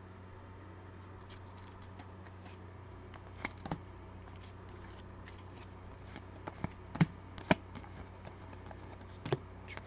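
Football trading cards being handled and slid through a stack by hand: a faint rustle with a few sharp card clicks, the loudest two about seven seconds in, over a low steady hum.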